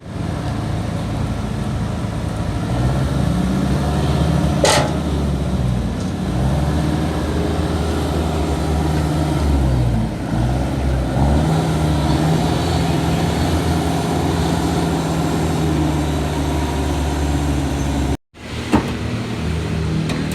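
A vehicle engine running steadily, its pitch wavering slightly, with a sharp click about five seconds in. The sound cuts out abruptly for a moment near the end.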